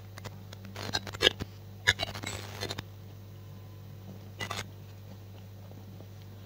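Brief bursts of rustling and scraping close to the microphone, a cluster about a second in and one more short burst past the middle, over a low steady hum. This is handling and clothing noise from the camera being moved through the crowd.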